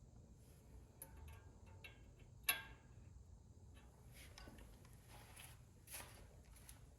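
A few faint, scattered clicks and light knocks over quiet room tone, the sharpest a single click about two and a half seconds in.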